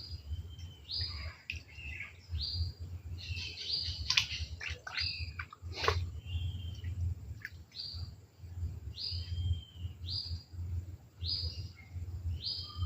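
Small bird chirping, with short high calls about once a second over a low rumble.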